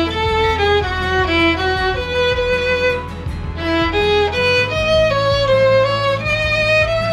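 Violin playing a melody of stepwise bowed notes, some held for about a second.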